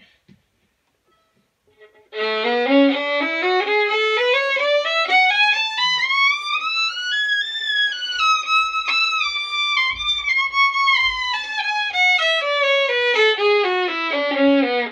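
Solo violin playing a three-octave A major scale, bowed at about four notes a second. It starts about two seconds in, climbs evenly from the low A to the top, then comes back down to the low A near the end.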